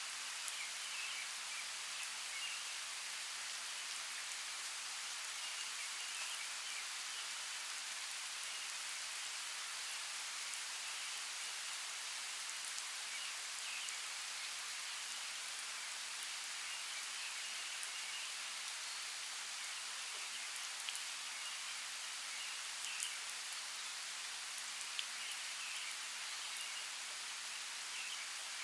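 Steady rain falling in a forest, an even hiss with scattered ticks of single drops. Faint short chirps come through now and then.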